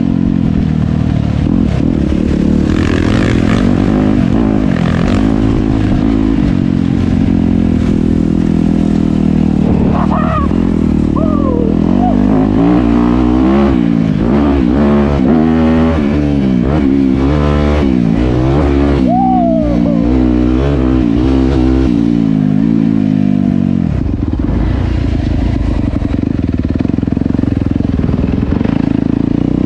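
Dirt bike engine being ridden on a trail, its pitch rising and falling over and over as the throttle is opened and closed.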